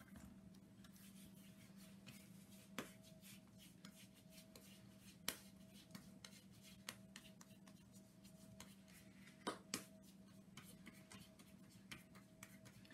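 Near silence: hands quietly rounding and patting a soft ball of yeast dough, with a few faint taps and rubs, the sharpest about five seconds in and again near the ten-second mark. A steady low hum runs underneath.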